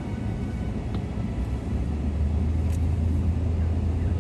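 Pickup truck driving steadily, a constant low rumble of engine and tyres.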